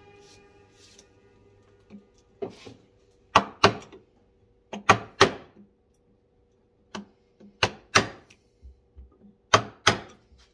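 Wooden mallet striking a bench chisel, driving it into the laminated wood of a boat stem to cut a beveled rabbet. Sharp blows come mostly in quick pairs, about every two seconds.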